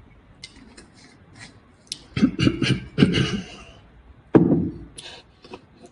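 A man clearing his throat and making mouth noises close to the microphone after a drink, in two loud bouts, with a few small clicks before them.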